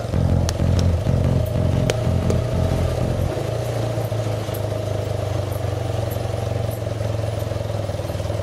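Motorcycle engine running at low speed. It pulses unevenly for about the first three seconds, then settles to a steady low running note.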